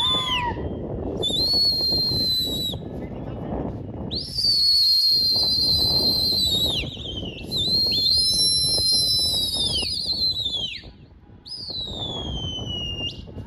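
Pigeon fliers' shrill whistles: several long, loud whistles, some wavering and several ending in a downward slide, with two whistling at once partway through.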